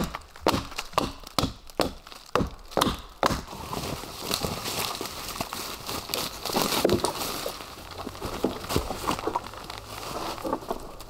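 Hatchet chopping into a log, about two sharp strokes a second, stopping about three seconds in. After that comes continuous crunching and rustling of dry leaf litter and twigs underfoot as a long pole is carried.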